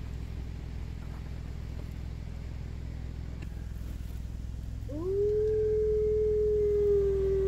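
Arctic wolf howling: one long howl beginning about five seconds in, sweeping quickly up and then holding a steady pitch that sags slightly, over a low steady hum.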